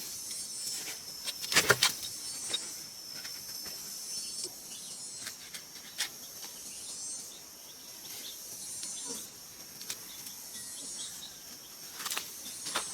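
A steady high-pitched insect chorus, with a few sharp clicks and knocks, the loudest two just under two seconds in.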